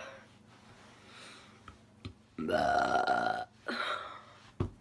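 A woman's long, loud burp starting about two seconds in and lasting about a second, followed by a shorter, weaker sound and a brief low thump near the end.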